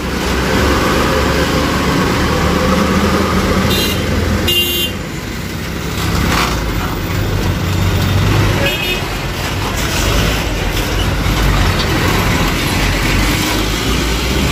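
Heavy trucks passing on a busy road, diesel engines running with steady road noise, and short horn toots about four seconds in, again just after, and once more near nine seconds.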